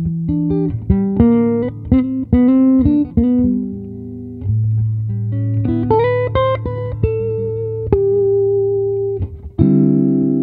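Solo Geronimo Mateos hollow-body guitar played fingerstyle: plucked melody notes and chords over low bass notes, with a held bass note in the middle and a ringing chord near the end.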